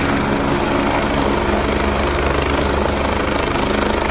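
Helicopter sound: a fast, even rotor beat over a steady engine hum and hiss.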